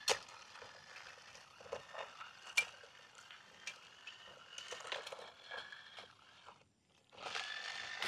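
Small electric motors of a cheap toy remote-control car and a toy earth mover whirring with a faint high whine, with scattered plastic clicks and knocks. The sound cuts out briefly near the end.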